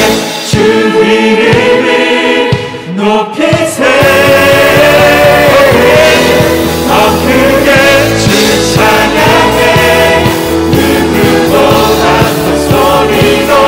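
Live worship band with a group of singers performing an upbeat Korean praise song. The opening seconds are sparser, then the full band comes in with a dense, steady beat about four seconds in.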